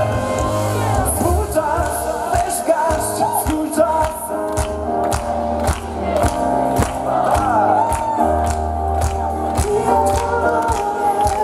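Live pop music: several voices singing over a band. From about four seconds in, sharp claps come in time with the beat, about twice a second.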